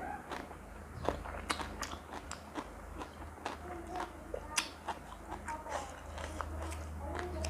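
A person chewing and biting food close to the microphone, with many short, crisp crunches at an uneven pace.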